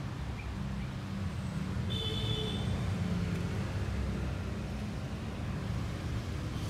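Steady low rumble of background traffic, with a brief high chirp about two seconds in.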